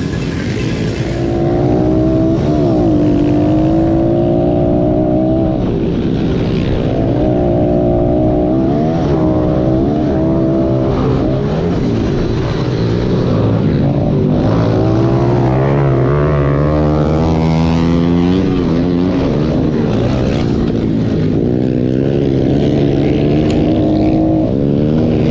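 Onboard sound of a small single-cylinder four-stroke pit bike engine being ridden hard on a dirt track. Its pitch keeps climbing and dropping as the throttle is opened and closed, with a few longer climbs.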